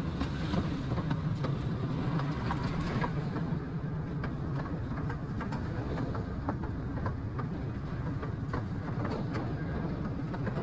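Miniature zoo train running along its track, heard from aboard: a steady low rumble with irregular clicks and clacks.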